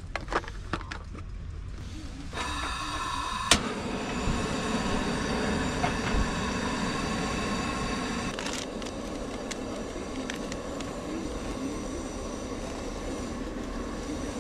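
Propane burner being lit: gas starts hissing with a whistling note about two seconds in, a sharp click comes a second later, and then the flame burns with a steady rushing sound.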